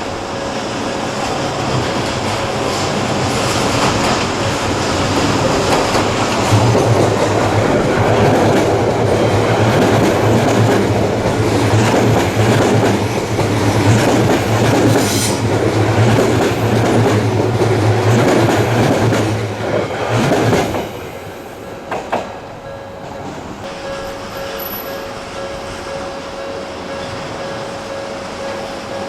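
Odakyu line train passing over the level crossing close by, its wheels clattering over the rail joints with a low motor hum. The sound builds over the first few seconds, stays loud for about twenty seconds and drops away abruptly as the last car clears.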